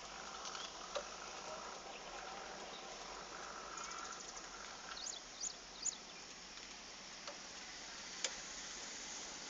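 Faint outdoor background hiss with a few sharp clicks, and three short high chirps about five to six seconds in.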